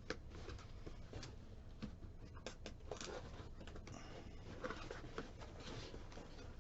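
Light rustling and scattered small clicks of packaging being handled as parts are taken out of a box.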